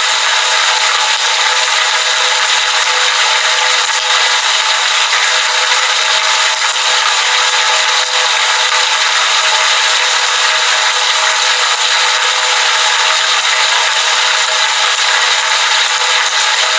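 Heavy rain falling, a steady even hiss with no breaks or separate drops standing out.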